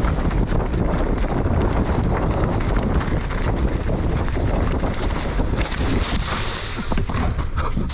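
Wind buffeting the camera microphone on a fast mountain bike descent, over the steady rumble of tyres on the trail and frequent clicks and rattles from the bike. A sharper hiss comes in about six seconds in.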